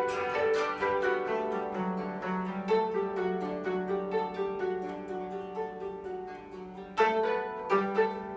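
Koto ensemble, including a 25-string bass koto, playing a quick flow of plucked notes that ring and fade. The playing grows softer past the middle, then a strong plucked chord comes in about seven seconds in.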